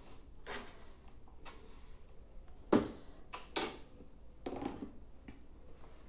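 A few scattered knocks and taps, the loudest about three seconds in, with a quick pair of lighter ones soon after, over quiet room tone.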